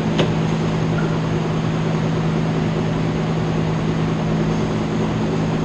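Steady machine hum with two strong low tones under a noisy whir, and one short click just after the start.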